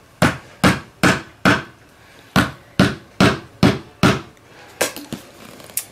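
Hammer tapping a brass Lift-the-Dot fastener to seat it in a vinyl soft top laid on a wooden table: about a dozen sharp taps, two or three a second, with a short pause about two seconds in.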